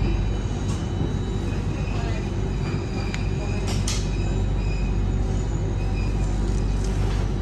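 Singapore MRT Circle Line train running between stations, heard from inside the carriage as a steady low rumble, with a few short clicks about three to four seconds in.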